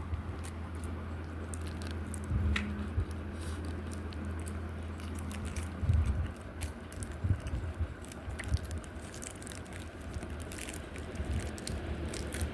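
A person biting and chewing fast food at close range, with scattered small crunches and wet clicks. A steady low hum sits under the first half and fades about six seconds in.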